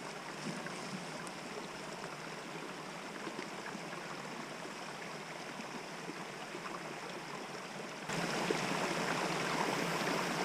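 Steady rushing outdoor noise of small waves lapping the shore and wind, stepping up louder about eight seconds in.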